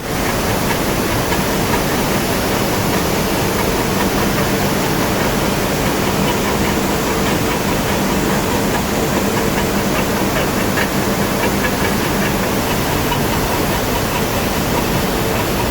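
Steady, loud industrial noise from the entry side of a non-oxidizing furnace on a steel-strip line: a constant rush with a faint, steady hum underneath.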